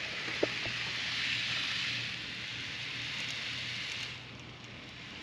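N-gauge model train running on the layout track: a steady hiss with a faint low hum, which drops away suddenly about four seconds in.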